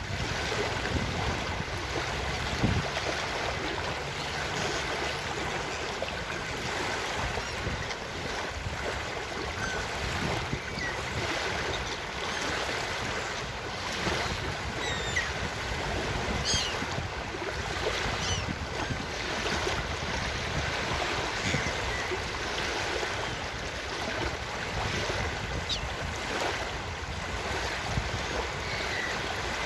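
Ocean surf washing onto a beach with wind, steady throughout, and a few faint gull calls near the middle.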